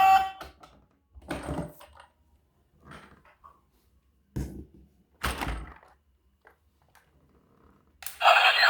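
Toy packaging being handled during an unboxing: four short knocks and thuds spread over about five seconds, with a few faint clicks. Near the end a loud, steady rattling noise starts.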